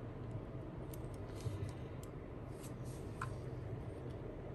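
Faint, scattered light clicks and taps of a small screw and precision tools handled against the opened iPhone's internal parts, over a steady low hum.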